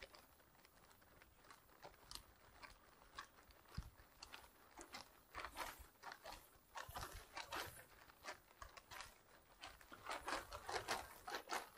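Faint, irregular clicks and crunching crackles, coming thicker and louder in the second half.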